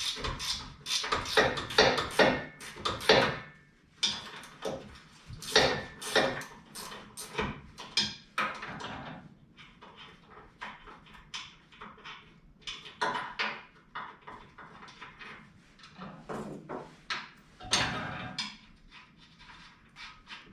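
Irregular metallic clinks and knocks of hand tools and loose nuts and bolts on a steel bumper as it is being unbolted, busiest in the first few seconds.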